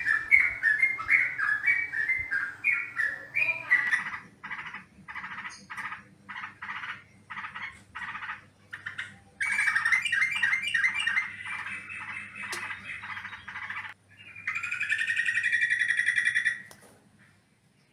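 Yellow-vented bulbul (trucukan) singing in bubbly, chattering phrases: a rapid run at first, then short separate phrases, a dense run from about halfway, and a last burst before it falls quiet near the end.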